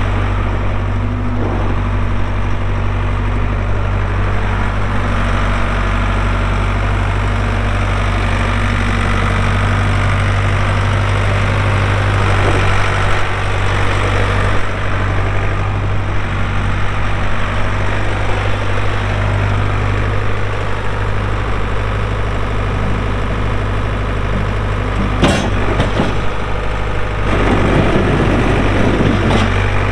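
Ford 555D backhoe loader's diesel engine running steadily. About 25 seconds in there is a sharp clank, and near the end a louder, rough rattling noise lasts about two seconds.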